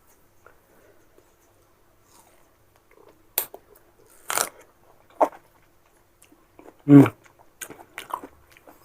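Crisp biting and crunchy chewing of young mango slices, close to the microphone. After about three seconds of quiet come several sharp, separate crunches; the loudest is about seven seconds in, followed by a few smaller ones.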